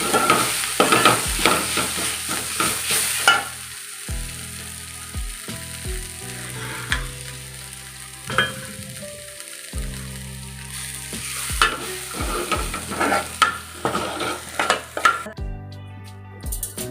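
Chutney ingredients sizzling in hot oil in a pan, stirred with a spatula that scrapes the pan in short strokes. The sizzle is loudest at first, drops back after about three seconds, and picks up again later.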